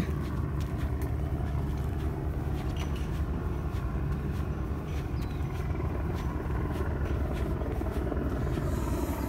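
A steady low rumble throughout, with faint footsteps as someone walks on a concrete sidewalk.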